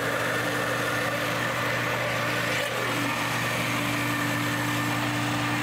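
High-power countertop blender running steadily at full speed, grinding soaked white rice into a warm yeast batter.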